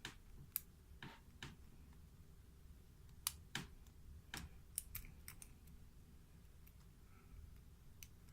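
Lock pick and tension wrench working the pins inside a Lockwood 570 padlock during single-pin picking. The result is faint, sharp, irregular clicks, with the strongest about half a second and three seconds in and a small cluster around five seconds.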